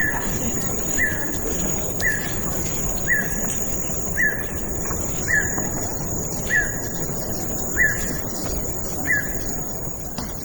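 A bird repeating one short chirp about once a second. Under it runs the steady rush of a forest stream, and a thin, high, continuous whine holds throughout.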